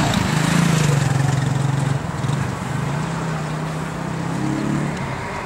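A car engine running close by, steady in pitch, over street traffic noise.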